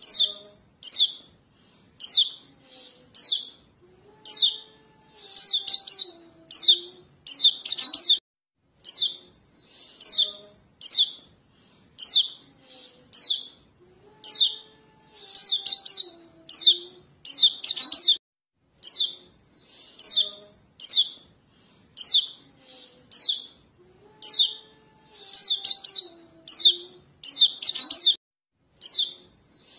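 Young white-eye (pleci) giving high, short begging chirps to call its parents, a lure call used for trapping. The chirps come about two a second, with quick runs of several together, in a sequence that repeats about every ten seconds.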